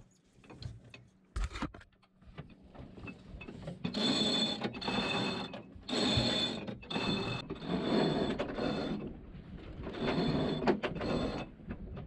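Genoa roller-furling line hauled in hand over hand, running through its blocks as the headsail rolls up. It goes in about five pulls from about four seconds in, each a second or so of whirring with a high squeak.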